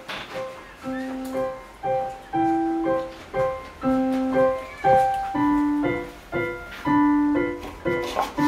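Solo piano background music: a slow, gentle melody of single notes at about two a second, turning to fuller chords about halfway through.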